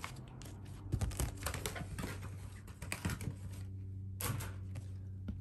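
Printed D&D wilderness terrain tiles being handled and set down on the table: a quick run of light clicks and taps for the first three and a half seconds, then a couple of single taps.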